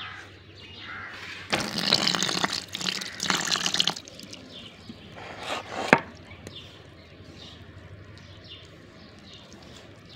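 Water pouring into a steel bowl of wheat flour for about two and a half seconds, then a shorter splash about five seconds in, as the flour is wetted into a batter.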